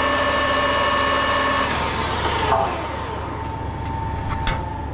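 Small lathe running with a steady whine while fine emery cloth polishes a spinning valve stem. It is switched off about two seconds in and winds down in falling pitch, leaving a quieter steady machine hum, with a sharp click near the end.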